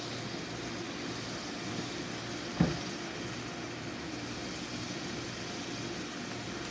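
Steady low hum and hiss of onions and tomatoes cooking in an aluminium pot on a gas stove, with one sharp knock about two and a half seconds in.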